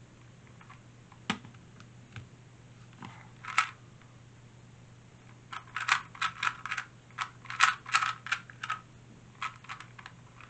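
Plastic 2x2 speed cube being turned by hand during a timed solve. A few scattered clicks come first, then a fast run of clacking turns from about halfway through, thinning out near the end.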